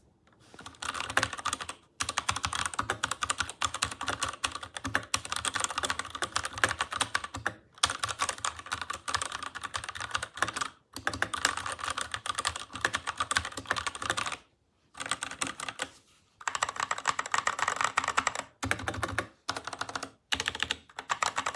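Typing on a MageGee 75% mechanical keyboard with red linear switches: rapid, dense key clacks in runs of a few seconds, broken by short pauses.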